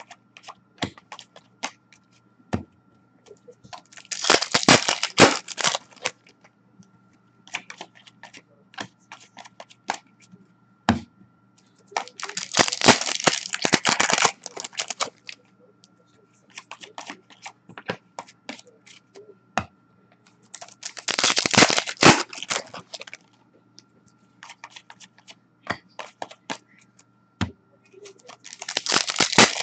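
Foil trading-card packs being torn open, four times about eight seconds apart, each a crinkly tearing rush lasting a second or two, with quick clicks and flicks of cards being shuffled through between them. A faint steady hum lies underneath.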